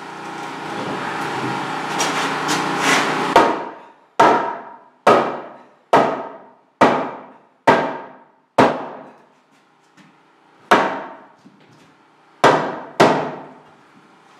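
A hammer striking a wooden wall stud to knock it out of the framing. A few seconds of continuous noise and quick knocks are followed by a string of single hard blows, about one a second with a short pause, each ringing out briefly.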